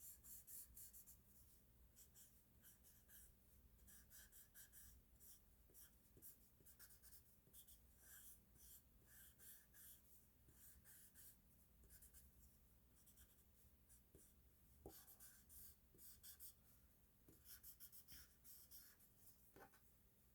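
Faint scratching of a drawing tool on paper, in quick irregular runs of short strokes, as a sketch is shaded.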